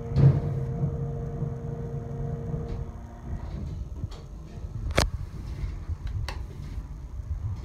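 Westinghouse hydraulic elevator arriving at a floor: a low thud as the car stops, with the arrival chime's tone ringing on and fading over the first few seconds, then the car doors sliding. Several sharp clicks follow, one of them a car-panel button being pressed.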